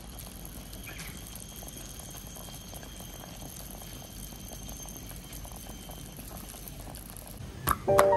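Sesame-oil and yellow-wine pork kidney soup simmering in a pot, a steady bubbling. Near the end there is a single knock, then music starts.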